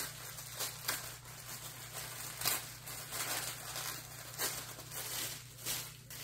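Thin plastic wrapping being unfolded and opened by hand: irregular crinkling and rustling, with a few sharper crackles spread through.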